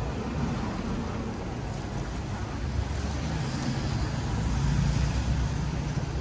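Street traffic: a low engine rumble from passing motor vehicles, swelling as one draws closest about three and a half to five and a half seconds in, then easing.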